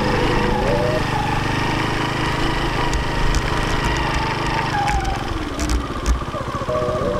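Motorcycle engine running steadily while riding along a rough dirt road, with a few knocks from bumps about halfway through.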